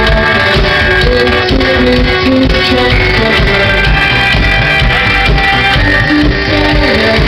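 A rock band playing live, loud and steady throughout.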